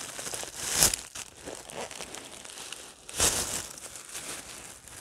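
Thin plastic wrap crinkling as it is pulled off a doll's head, in irregular rustles with the sharpest bursts about a second in and about three seconds in.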